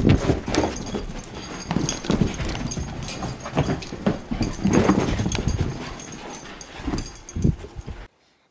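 A dog vocalising in short, irregular bursts, mixed with scuffling and handling noise.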